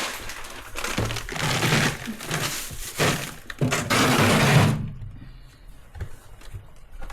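Rustling with scattered knocks as things are handled, loud for about the first five seconds, then dying down to a faint tap or two.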